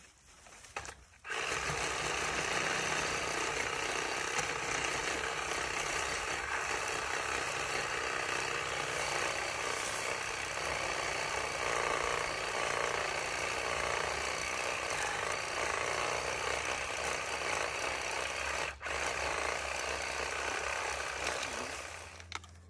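Powered pole saw running steadily as it cuts the lower limbs off a spruce tree, starting about a second in, with one short break near the end before it winds down.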